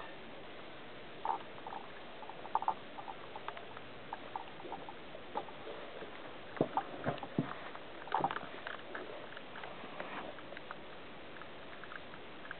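Four-week-old Goldendoodle puppies playing: scattered small squeaks mixed with light scuffles and taps, coming in irregular little clusters.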